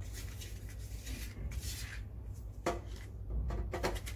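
A screwdriver turning out the screws on the sheet-metal case of a hot-air rework station, giving a few small clicks, taps and scrapes, several close together near the end. A low steady hum runs underneath.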